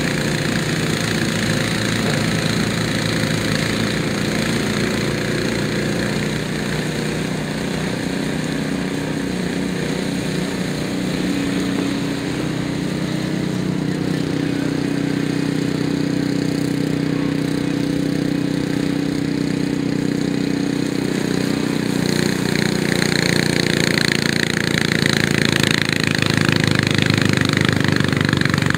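Snowblower's gasoline engine running steadily under load as the auger and chute throw snow. It grows louder, with more hiss, from about 22 seconds in.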